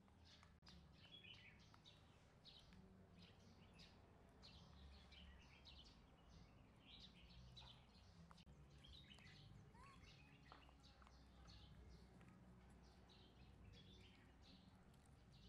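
Faint chirping of small birds, many short high calls one after another, over a low steady background hum.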